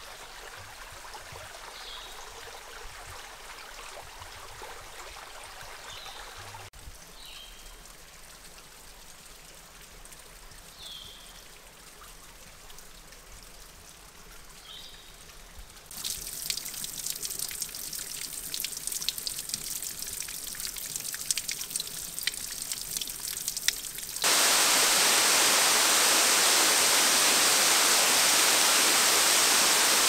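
Creek water running, with a few short high chirps over it in the first half. About halfway through it turns to louder splashing water full of sharp drips and spatters, and near the end it switches abruptly to the loud, steady rush of a waterfall close by.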